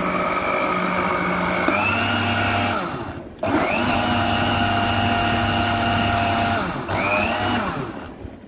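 Electric countertop blender running on a thick mango shake in three runs: about three seconds, a brief stop, another three seconds, then a short final pulse. Its motor whine steps up in pitch a couple of seconds in.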